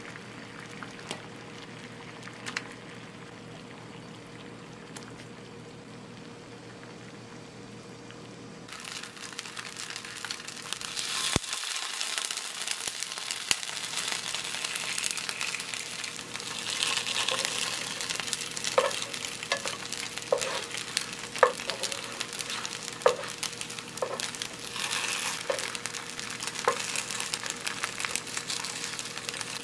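Potato gnocchi pan-frying, sizzling loudly from about a third of the way in, after a quieter stretch with a pot of water on the boil. In the second half a spatula knocks and scrapes against the frying pan, short knocks about once a second.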